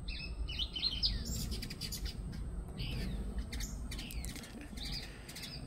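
Hummingbirds chirping as they chase each other in the air: a run of quick, high chips and short twittering sweeps.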